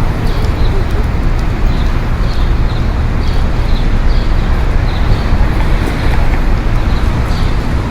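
City street traffic: steady road noise with a low rumble of passing vehicles. Faint high clicks repeat a little under once a second.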